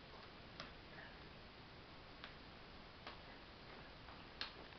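A handful of faint, sharp clicks at irregular intervals, the loudest near the end: a hedgehog crunching dry cat food out of a paper bag.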